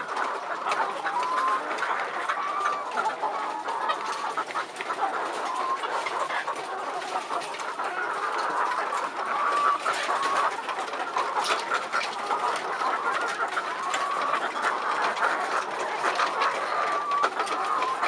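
Many caged white laying hens clucking together in a steady, dense chorus of short calls, with scattered small clicks throughout.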